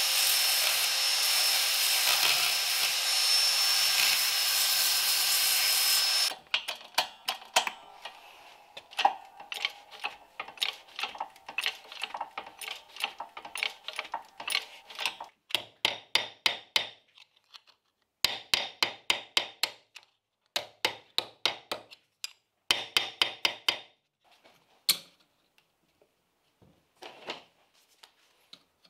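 Handheld narrow belt file sander grinding a small steel bracket, a steady gritty noise with a thin high whine, cutting off about six seconds in. Then come many sharp metallic taps and clicks in quick bursts of several a second, thinning out toward the end.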